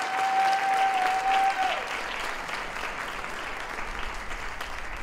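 Audience applauding, with one voice holding a long high cheer through the first two seconds over the clapping.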